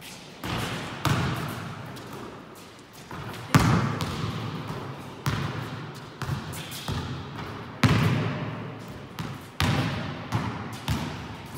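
Basketballs bouncing on a hard court floor: about ten irregular thuds, each ringing on with a long echo in the enclosed court.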